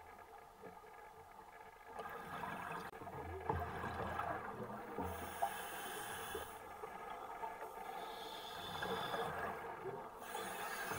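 Scuba diver breathing through a regulator underwater: hissing inhalations alternating with bubbling exhalations, several breaths in a row.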